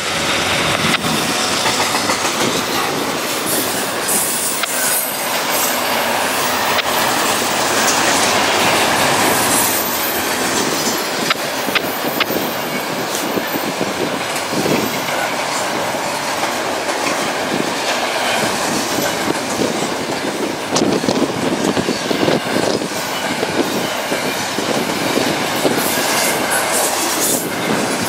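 Double-stack intermodal freight train's articulated well cars rolling past close by: steady rumble and hiss of steel wheels on rail, with wheel clacks over rail joints that come thicker in the last several seconds.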